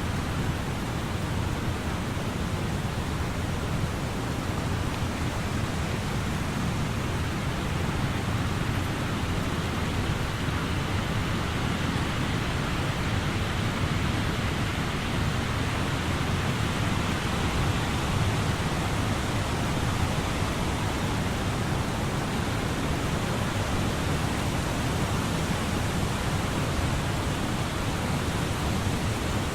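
Tree leaves rustling in a steady wind, an even unbroken rush of noise.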